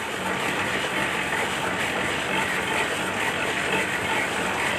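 Screw-type oil expeller press running steadily while it crushes mustard seed, a continuous even machine noise with no change in pace.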